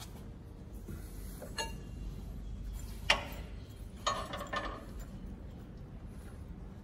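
Scattered light metallic clicks and clinks of a wrench on the drive-gear nut of a Cummins 6BT's P-pump, the inline injection pump, as the nut is loosened and turned off by hand. One sharper click about three seconds in is the loudest.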